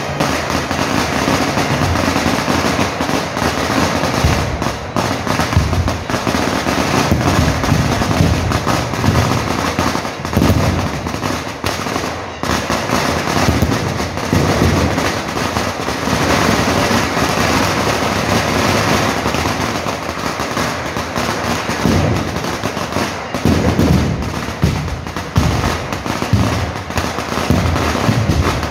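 A long string of firecrackers going off in a dense, rapid crackle of many small bangs with no pause.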